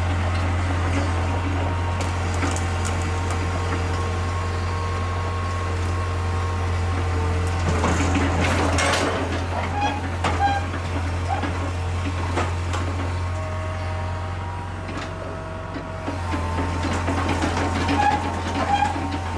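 Heavy diesel machinery, most likely the Hitachi excavator, running steadily with a deep, even hum. Metal squeaks and clanks come about eight to ten seconds in and again near the end.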